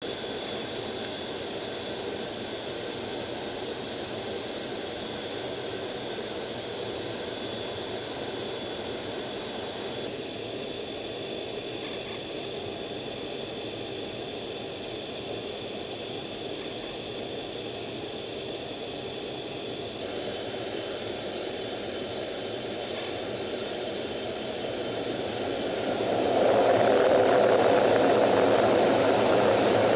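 F/A-18 Hornet jet engines running steadily, heard from inside the cockpit as a rushing roar with a thin high whine over it. Near the end the engine noise swells much louder, as the engines are run up to full power for the catapult launch.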